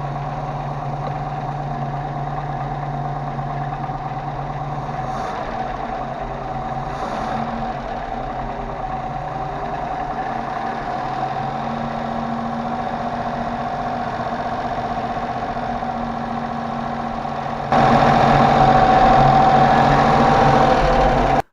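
Range Rover Classic's 3.5-litre V8 idling steadily with a constant dull knock, which the owner takes for a knocking hydraulic lifter. The sound gets noticeably louder near the end and then cuts off abruptly.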